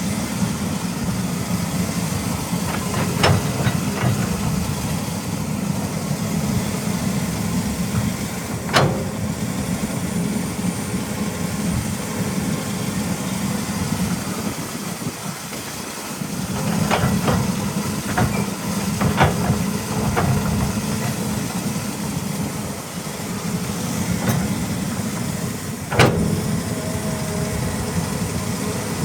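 A Caterpillar 320E hydraulic excavator's diesel engine running steadily under working load, with sharp metallic clanks now and then: about half a dozen, the loudest near the end.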